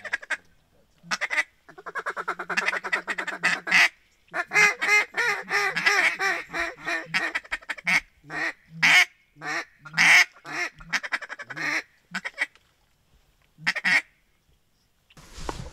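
Duck quacking: two long, fast chattering runs of quacks, then a string of separate quacks with short gaps between them.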